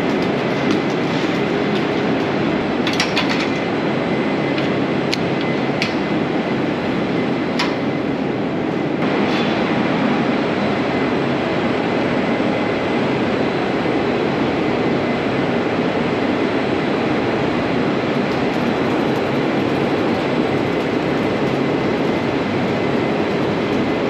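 Steady, loud whooshing hum of a dairy barn's ventilation fans, with a few sharp metallic clicks or knocks in the first eight seconds.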